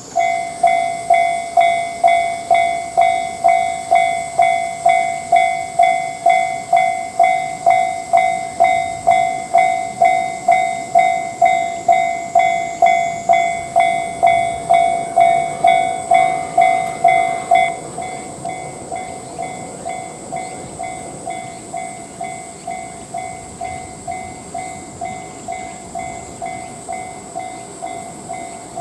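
Japanese railroad crossing warning bell ringing its steady 'kan-kan' ding, a little under two strikes a second. About two thirds of the way through it drops to a noticeably quieter level and keeps ringing.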